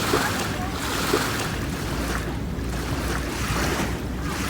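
Small lake waves washing in, surging and easing about every second or so, with wind rumbling on the microphone.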